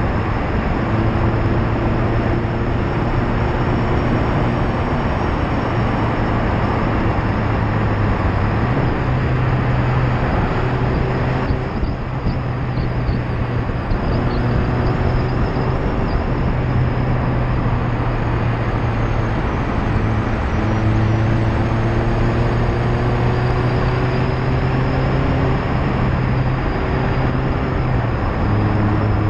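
Loud tyre roar on the road surface, heard from a bumper-mounted camera on a Mazda MX-5 ND2, with its four-cylinder engine and exhaust running underneath. The engine note steps to a new pitch at each gear change, several times, and climbs steadily for a few seconds past the middle.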